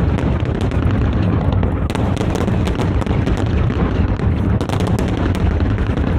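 Fireworks display: a dense, unbroken barrage of aerial shell bursts, overlapping booms merging into a continuous rumble with many sharp cracks on top.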